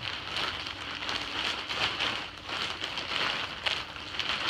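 Potting mix pouring out of a large plastic bag onto a wooden platform as the bag is tipped and shaken: a gritty, uneven hiss with crinkling and small crackles from the bag.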